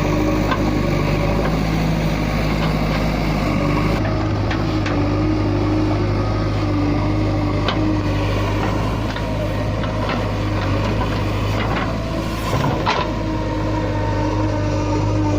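JCB 3DX backhoe loader's diesel engine running steadily, with a couple of short knocks near the end.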